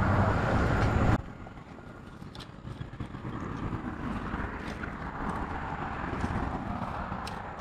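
Passing road traffic, loud at first and cutting off abruptly about a second in. Fainter traffic noise follows, with a few light clicks as a magnet-fishing rope is hauled up over a concrete bridge ledge.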